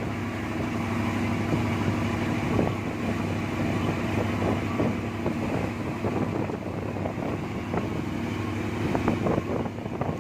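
Boat engine running steadily, with wind on the microphone.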